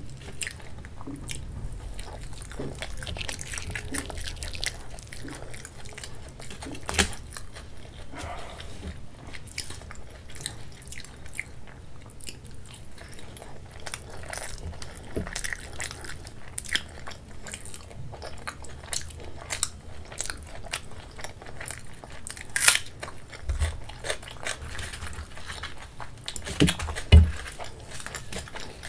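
Close-miked chewing and biting of poori, the fried puffed wheat bread, dipped in chole and eaten by hand: a steady run of small mouth clicks and crackles, with a few louder sharp clicks, the loudest near the end.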